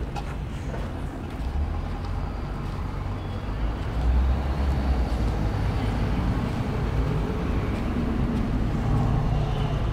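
Street traffic: a motor vehicle's low engine rumble, which swells about four seconds in and keeps running.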